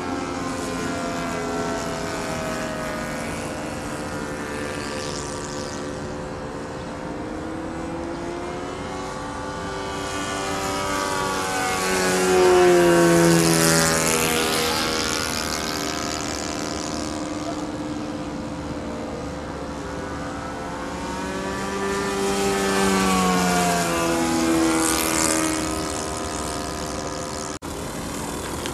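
Engine of a radio-controlled Groovy 50 3D aerobatic model plane, powered by an ASP 91AR glow engine, flying overhead. Its note rises and falls in pitch as it manoeuvres and passes close, loudest about halfway through and again about three quarters of the way in.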